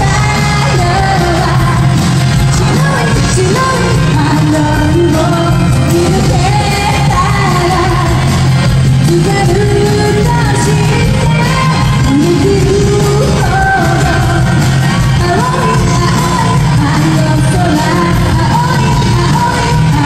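Live pop song: a woman singing into a microphone over loud backing music, amplified through a concert PA in a large hall.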